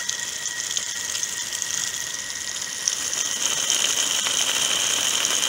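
Water hissing out of a garden hose through a ball valve that is being closed down. About three seconds in the hiss grows a little louder and brighter as the valve throttles the flow, building back pressure on the output side of the Venturi siphon mixer until its mixing stops.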